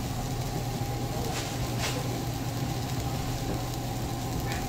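Steady low machine hum of a commercial kitchen with an even hiss over it, the equipment running around a gas range and flat-top griddle. A brief light knock just under two seconds in.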